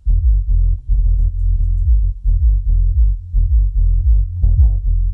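Bowers & Wilkins ASW608 8-inch subwoofer playing an electronic music track loud for a bass test: deep, pulsing bass notes with little sound in the higher range.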